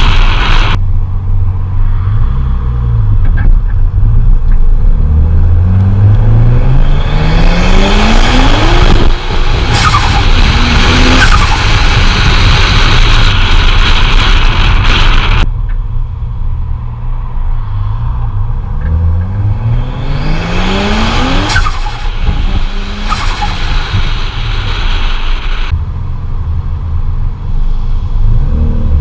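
Turbocharged car engines accelerating hard, the engine pitch climbing steeply through the revs, across several back-to-back clips with abrupt cuts between them.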